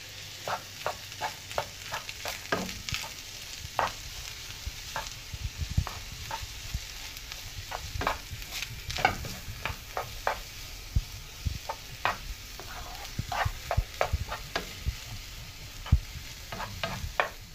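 Wooden spoon stirring rice in a pan: frequent short scrapes and taps against the pan over a steady faint sizzle as the rice sautés in butter.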